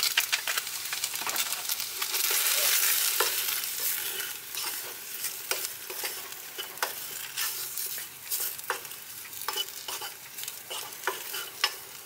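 Diced chicken frying and sizzling in a small saucepan over a gas burner, freshly coated with a dry spice mix, while a wooden spoon stirs it with many short scrapes and knocks against the pan. The sizzle swells for a couple of seconds about two seconds in.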